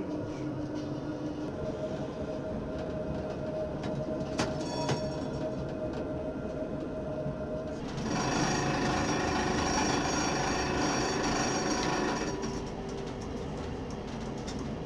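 Tram running along street track with a steady motor whine and two sharp clicks about four and a half seconds in. About eight seconds in, a louder ringing squeal of the wheels on curved rails sets in and lasts about four seconds.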